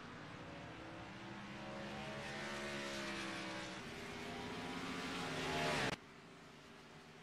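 Race car engine pulling hard and climbing in pitch, shifting up a gear a little under four seconds in and climbing again, then the throttle is lifted near the end and the note drops suddenly to a quieter steady drone.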